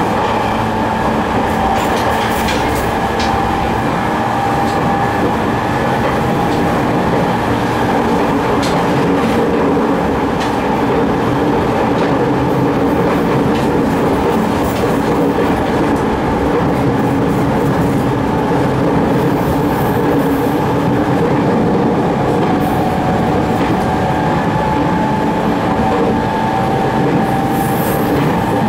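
Interior running noise of a JR 209 series 3100-subseries GTO-VVVF electric train with MT73 traction motors. A steady whine holds level over the wheel-on-rail rumble, and faint clicks from the track come now and then.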